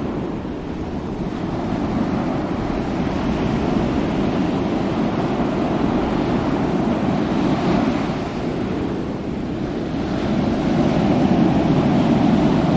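Ocean waves breaking and washing in a continuous rush of surf. It swells with a new wave about two seconds in and again near the end, easing in between.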